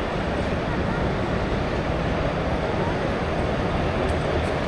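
Steady hubbub of many indistinct voices in a large exhibition hall.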